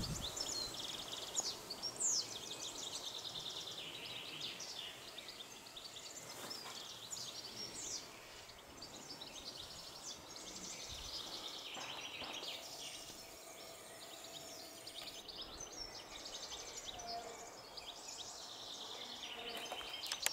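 Wild songbirds singing and chirping, with quick trills and short rising and falling notes, heard over a faint steady outdoor background.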